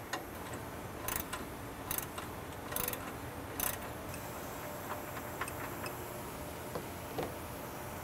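Ratchet wrench clicking in short runs about once a second, then fainter scattered ticks from about four seconds in, as it backs out the long inner bolt of a toe link.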